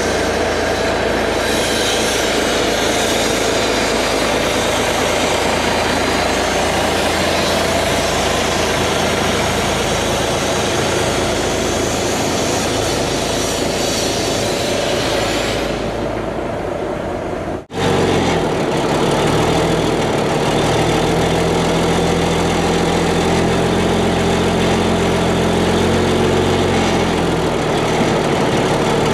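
Cummins NHC-250 855 inline-six diesel of a 5-ton military 6x6 dump truck running as the truck rolls slowly out past on its big tyres. After a sudden cut about two-thirds of the way through, the engine idles steadily.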